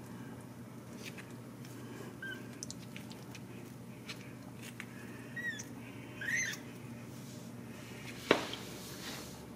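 Ragdoll kittens giving a few short, high mews, the loudest a little past six seconds in, followed by a single sharp thump near the end.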